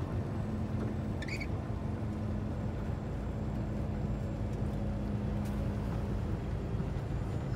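Semi-truck driving on a wet highway, heard from inside the cab: a steady low engine drone with road and tyre noise. A low steady tone in the drone fades out about six seconds in.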